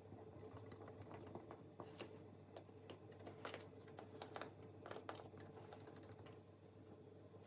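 Faint, irregular small clicks of a screwdriver turning the side screws that fix a flush-mounted socket mechanism into its wall box, over a low steady hum.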